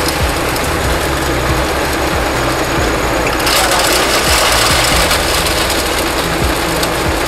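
Hammer mill, driven by a 7.5 HP electric motor and with a cyclone blower, running at speed as white stone is let in through the feed gate under the hopper, which is opened gradually. The steady machine noise grows brighter about three and a half seconds in.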